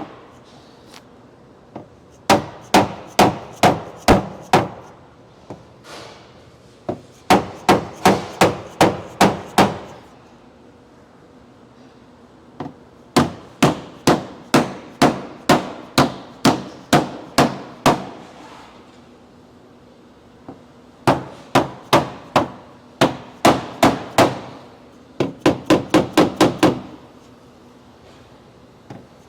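Body hammer striking the dented sheet metal of a Tesla Model 3 rear quarter panel to knock a pushed-in edge back out, in runs of sharp strikes about three to four a second with pauses of a few seconds between runs. The last run, near the end, is quicker.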